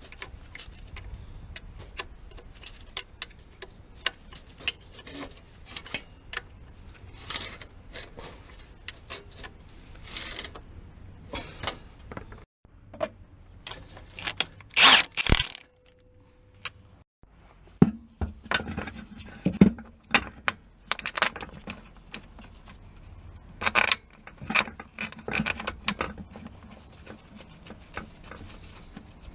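Hand tools and metal car parts clinking, clicking and clanking at irregular intervals during mechanical work, with short dead silences in between.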